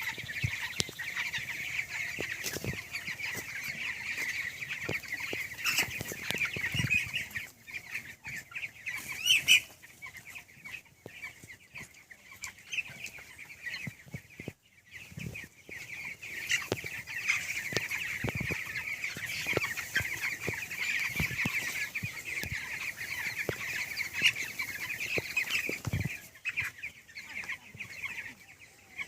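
Flock of 19-day-old broiler chicks peeping: a dense chorus of high cheeps that thins out for several seconds in the middle, then fills in again.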